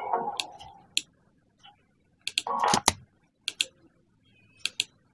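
Computer mouse clicking a handful of times, several clicks coming as quick press-and-release pairs, with a brief rustle about halfway through. Music fades out during the first second.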